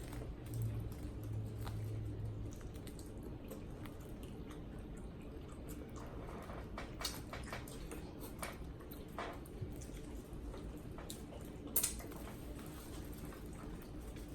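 Wet mukbang eating sounds from saucy boiled seafood: shrimp shells peeled and food chewed, with scattered small clicks and lip smacks and one sharp smack about 12 seconds in. A low hum runs through the first two seconds.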